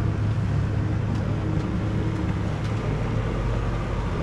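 Motorboat engine running steadily underway, a constant low drone, with a rushing hiss of water and wind.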